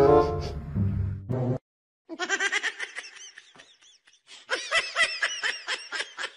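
Background music on cello and double bass, which stops about a second and a half in. After a short silence a child laughs in quick, high-pitched bursts that ease off briefly and then pick up again.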